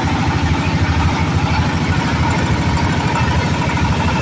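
Oil palm loose-fruit threshing machine running steadily under test, its engine drive giving a rapid, even low pulsing with a faint steady tone above it.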